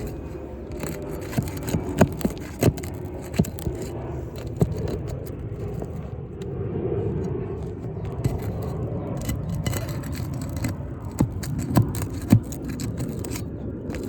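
Roof shingles being scraped and pried loose, with a steady low scraping rumble and a series of sharp clicks and knocks from the tool against the brittle shingles.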